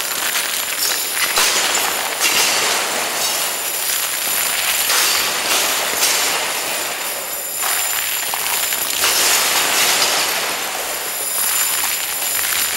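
Handfuls of steel nails thrown hard onto a body covered in strong magnets and metal armour: a dense metallic clatter and jangle of nails striking metal and scattering across the floor, with a fresh surge at each throw, one throw after another.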